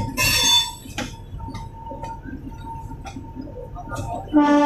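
Train rolling through a station yard with a low rumble and a few wheel clicks. A brief high-pitched horn toot sounds just after the start, and a longer, steady train horn blast begins near the end.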